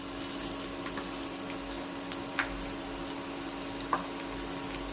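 Onion, garlic and whole spices sizzling steadily in butter and oil in a kadai, with a few sharp clicks of a spatula stirring against the pan. A steady hum runs underneath.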